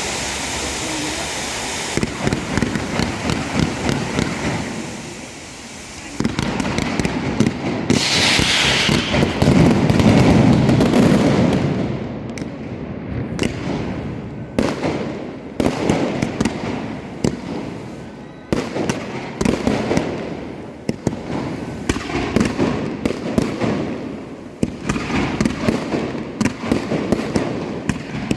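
A Valencian castillo aerial fireworks display: after a steady rushing noise, a rapid string of bangs and crackles starts about two seconds in and keeps going, building to a loud, dense volley of explosions about ten seconds in.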